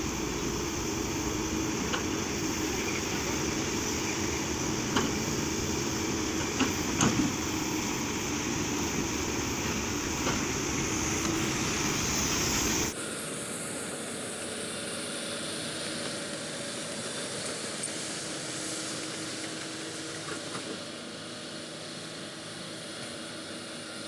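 Kobelco SK220XDLC crawler excavator's diesel engine running steadily as it works soil with its bucket, with a few short knocks from the machine. About halfway the sound suddenly becomes quieter and thinner.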